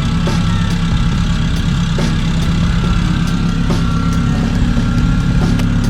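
A car engine idling steadily, with a few scattered clicks over it.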